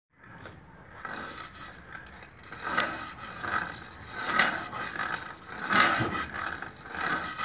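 Kukri blade being sharpened by hand: repeated rasping scrapes of steel against an abrasive, with a louder stroke about every second and a half.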